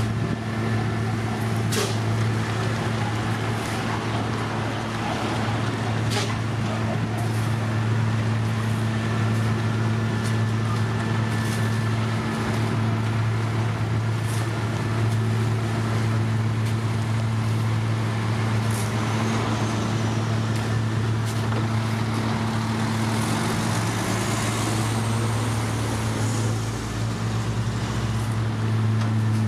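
Diesel engines of an asphalt paver and a dump truck running steadily at a constant hum while the truck tips its load into the paver's hopper. A couple of sharp knocks come in the first several seconds, and the engine tone dips briefly late on.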